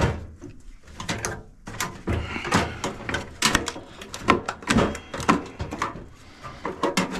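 Irregular clicks, knocks and clanks of hand tools prying at a microwave's metal parts during dismantling.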